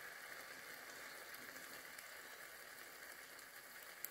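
Faint, steady sizzling of hot cooking oil poured in a thin stream over malagueta chili peppers and olives, with one sharp click near the end.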